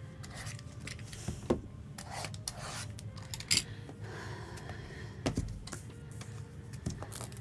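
Quiet handling noises: light rubbing and scattered small clicks and taps, as trading-card packs and boxes are handled on a table.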